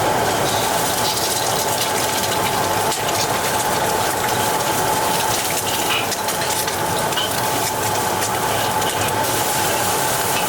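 Steady commercial-kitchen cooking noise: a continuous hiss with a constant hum underneath.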